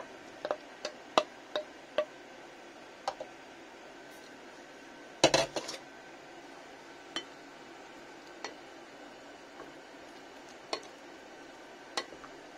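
A ceramic bowl and a wooden spoon clinking and knocking against a glass mixing bowl as cooked potato cubes are scraped in and stirred. There are scattered single clinks, with a louder cluster of knocks a little past five seconds in.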